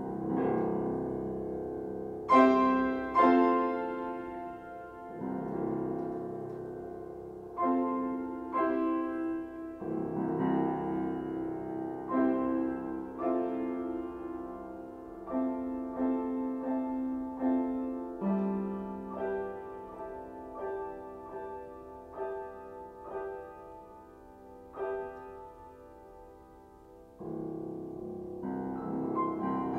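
Solo piano playing a slow succession of chords, each struck about once a second and left to ring down. Near the end it swells into louder, busier playing.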